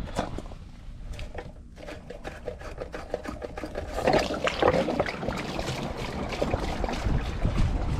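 A Pentair pool filter's plastic drain plug is unscrewed, with short clicks as it turns. About four seconds in it comes out and water pours steadily from the filter tank's drain port, splashing onto the concrete pad.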